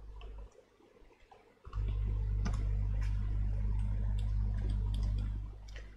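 Scattered clicks of a computer mouse and keyboard. A loud low hum comes in about two seconds in and fades near the end.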